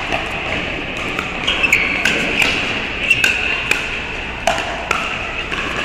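Pickleball paddles striking a hard plastic ball in a fast rally at the net: a quick, uneven series of sharp pops, about a dozen, some only a few tenths of a second apart.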